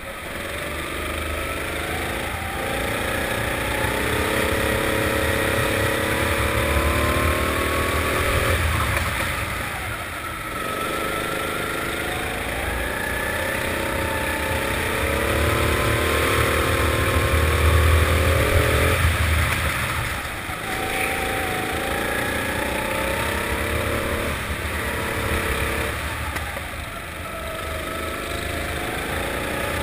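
Four-stroke indoor rental kart engine under the driver, revving up in pitch along each straight and dropping back when the throttle lifts for the corners, about four times. It is loudest on the longest pull, a little past halfway.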